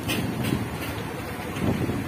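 Low, steady rumble of a motorcycle engine ridden slowly through a flooded street, with wind buffeting the microphone.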